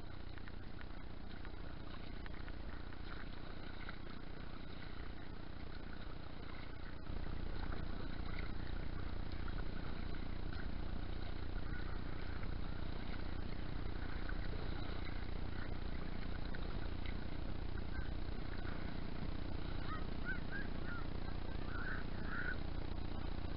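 Steady low rumble of wind buffeting an open-air camera microphone over choppy water, stepping up in level about seven seconds in, with a few faint high chirps near the end.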